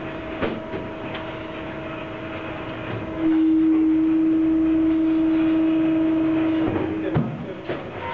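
Workshop machine giving off a steady droning hum that gets much louder for about three and a half seconds in the middle, with a few light knocks of shoes and tools being handled.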